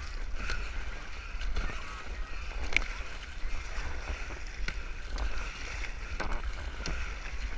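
Double-bladed kayak paddles dipping into the sea and splashing every second or so as an inflatable boat is paddled along, with wind rumbling on the camera microphone.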